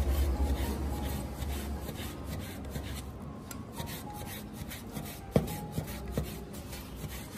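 Chinese cleaver slicing raw lean pork thin on a wooden cutting board: a run of light scraping knife strokes, with a few sharper knocks of the blade on the board a little past halfway.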